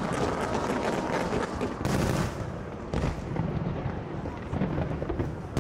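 Fireworks going off in quick succession: a dense run of bangs and crackles over a low rumble, with sharper loud reports about two and three seconds in.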